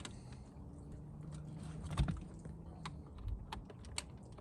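Light plastic clicks and taps from a start-stop switch and its console trim bezel being handled and pressed into place, with a sharper click about two seconds in and another near the end.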